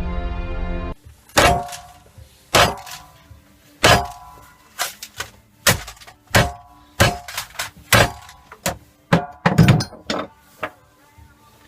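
Intro music ends about a second in. Then come a series of sharp, irregular metal-on-steel hits, with a short ringing after each. These are hammer strikes on steel, about one to two a second.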